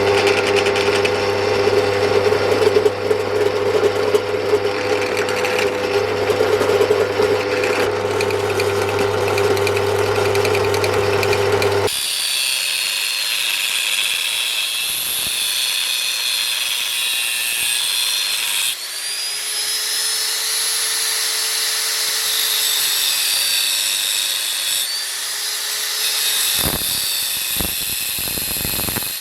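An electric power tool, such as a drill or grinder, runs steadily on the 1 mm iron plate for about twelve seconds. It then gives way abruptly to high, shrill whistling whose pitch rises and falls in slow sweeps.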